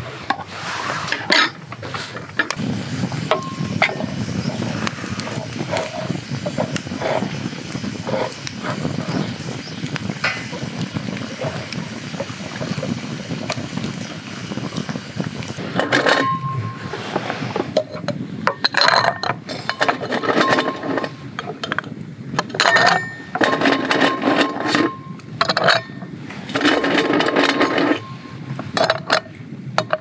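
Ice cubes dropped one at a time into a very thin (0.9 mm) glass, each one clinking against the glass with a short ringing tone. The clinks come in clusters from about halfway through; before that there are only soft handling clicks.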